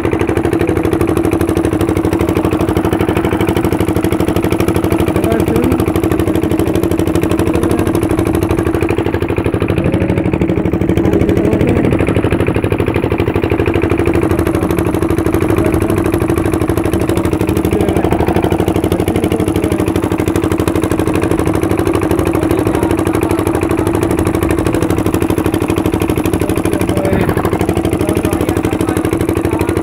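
A boat's engine running steadily at a constant speed, a loud, even hum that holds one pitch throughout.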